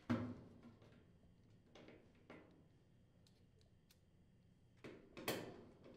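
Faint handling sounds of a hand driver turning screws into a sheet-metal appliance top panel: a few soft clicks and scrapes, with a louder rub or knock just at the start and another about five seconds in.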